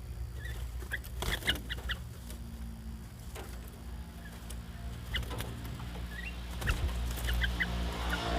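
Caged bulbuls giving short chirping calls in scattered clusters of a few notes, over a steady low hum.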